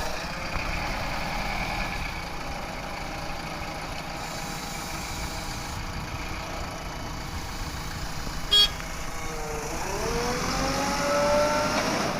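Heavy diesel engine of a backhoe loader or tipper truck running steadily. About nine and a half seconds in its speed drops and then rises again as it is revved up. A short, sharp horn toot sounds just before that.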